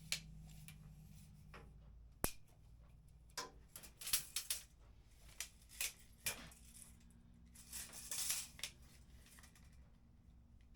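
Faint handling noise: scattered light clicks and short rustles as the angle grinder's power cord is handled and measured, over a low steady hum.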